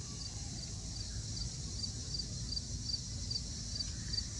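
Insects chirping, faint and high, with a regular pulse about twice a second over a steady trill and a low background rumble.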